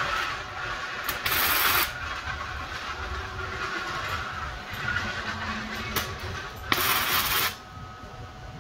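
Two short bursts of MIG tack welding on steel plate, each under a second, about a second in and near the end, over a steady background hum.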